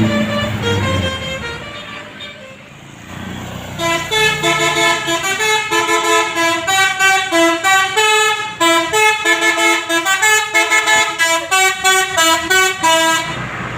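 Bus telolet basuri musical horn playing a fast tune of short, stepping notes, starting about four seconds in and cutting off just before the end. Before it, a low vehicle rumble fades away.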